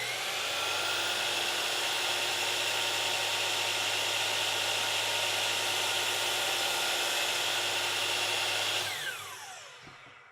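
Miter saw motor spinning up, running steadily with a high whine for about nine seconds, then coasting down with a falling pitch as the blade spins to a stop.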